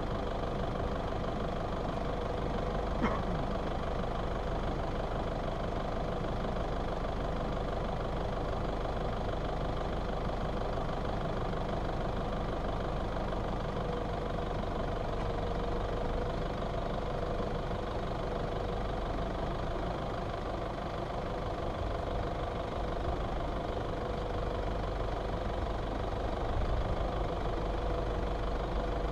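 Toyota Fortuner's engine running at a steady idle, with a single light click about three seconds in; the low rumble grows a little louder near the end as the 4x4 pulls forward.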